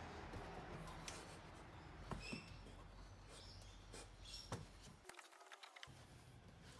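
Faint rustling and scraping with a few light clicks and knocks as a new rubber air spring is worked by hand into place in the rear suspension.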